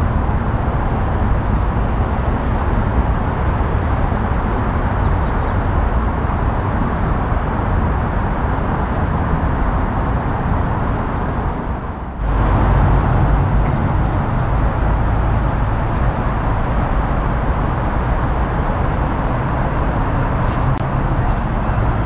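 Steady rush of Interstate 5 freeway traffic, an even din of tyres and engines. It dips briefly about halfway through, then comes back a little louder and fuller.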